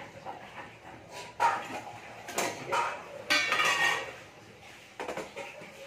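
A stainless-steel spice box (masala dabba) and its lid clink and clatter, with a few sharp metal knocks and brief ringing as it is opened and set down on the gas stove.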